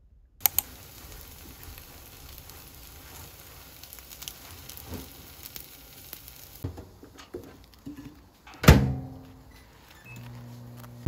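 Eggs frying in a pan, a steady sizzle with a few clicks. About two-thirds of the way through the sizzle stops, followed by light clicks and one loud knock with a short ringing tail.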